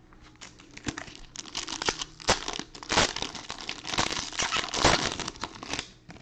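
Foil wrapper of a 2020 Donruss Optic trading-card pack being torn open and crinkled: a dense run of sharp crackling that starts about a second in and is loudest near the middle and again near the end.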